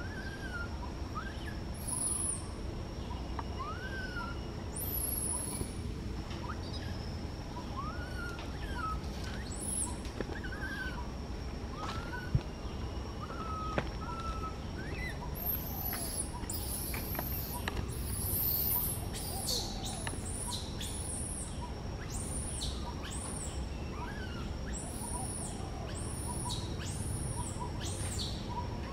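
Baby macaque crying in short, high calls that rise and fall, one every second or so, mostly in the first half.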